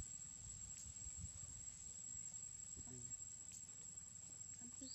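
Faint outdoor background with a steady high-pitched insect drone throughout and a few faint clicks.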